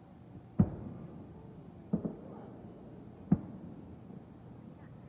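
Firework shells bursting: a sharp bang, a quick double bang about a second and a half later, then another bang, each trailing off into a rumble.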